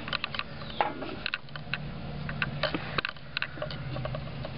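Irregular light metal clicks and knocks as a Jeep Wrangler YJ's front track bar is worked up and out of its mount.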